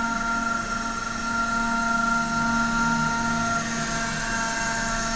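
Radio-controlled model helicopter's motor and rotor whining steadily, shifting slightly in pitch about three and a half seconds in.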